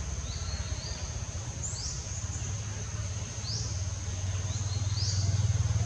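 Forest ambience: a steady high-pitched insect drone, with a bird giving short rising chirps every second or so, over a steady low rumble.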